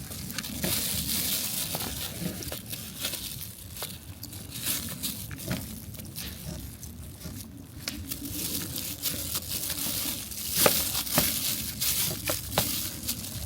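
Crinkling, rustling handling noise with many scattered small clicks and knocks.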